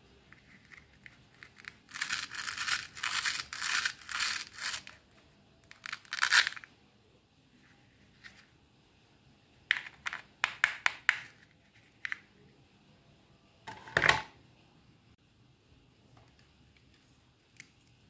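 Plastic toy strawberry halves being rubbed together and pulled apart. A run of scratchy, tearing rasps comes about two to five seconds in and again briefly around six seconds, then a quick series of sharp clicks, and a single louder knock near the end.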